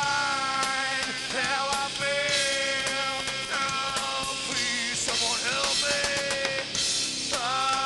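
Live rock band playing a hard rock song, with a lead line that slides and bends between notes over the band.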